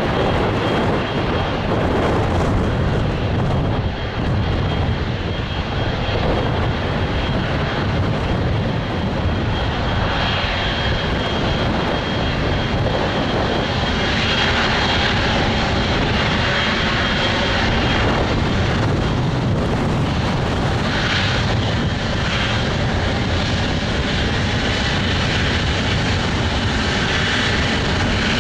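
Boeing 777-200F freighter's twin GE90 turbofans at take-off power, a loud, steady jet noise heavy in the low rumble.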